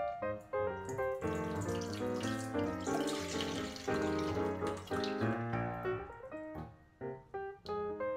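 Coconut water trickling from a cracked-open coconut into a stainless steel bowl for a few seconds midway, under background piano music.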